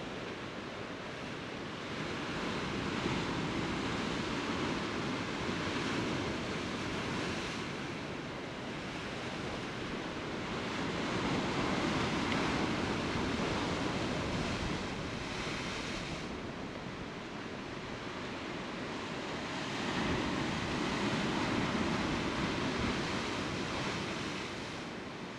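Sea surf washing against a rocky shore, a steady rush that swells and eases every several seconds.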